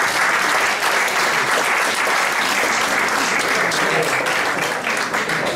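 Audience applauding steadily, the clapping trailing off slightly near the end.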